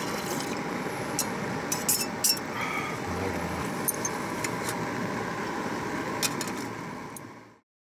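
A few short clinks of chopsticks against metal camp cookware over a steady rushing hiss, all fading out near the end.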